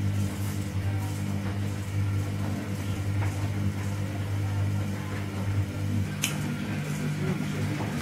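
Small electric motor of a spinning bird cat-teaser toy running with a steady hum, which changes about six seconds in; a single sharp click a little after.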